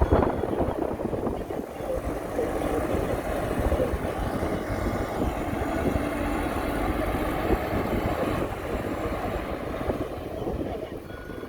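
Heavy construction machinery engine running steadily under work, a dense rumbling mechanical noise that eases off slightly near the end.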